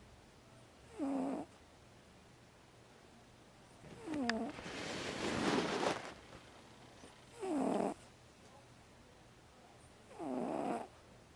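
A sleeping house cat making short squeaky, snore-like sounds with her breathing, four times about three seconds apart, each sliding down in pitch, with one longer noisy breath in the middle. The owner is not sure this is really snoring.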